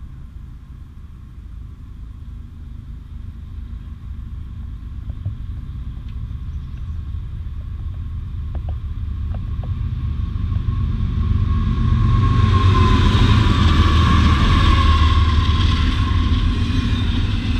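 CSX diesel freight locomotives hauling a double-stack container train approach and pass. Their low rumble builds steadily from a distance and is loudest about twelve seconds in, as the locomotives go by.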